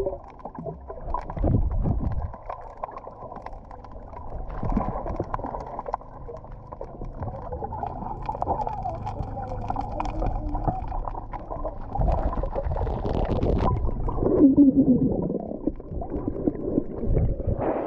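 Muffled underwater sound of water swirling and bubbling around a submerged camera, with irregular thuds.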